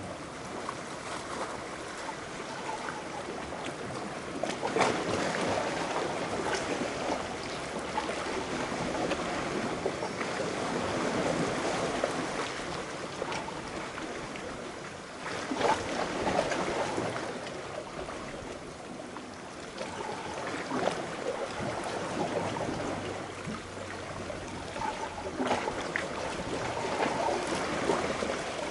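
Small sea waves lapping and sloshing against rocks close to the microphone, swelling in surges about every five seconds, with little splashes and gurgles.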